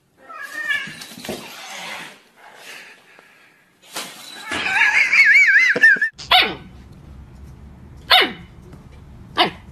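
A cat and a puppy squaring off: hissing, then a loud, wavering high-pitched cry as the cat lunges. After a cut, a husky puppy gives three short yelps, each sliding steeply down in pitch, over a low steady hum.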